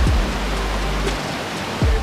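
Background music with two deep bass-drum hits, each dropping in pitch, at the start and near the end, over a sustained low bass line and a steady rushing hiss.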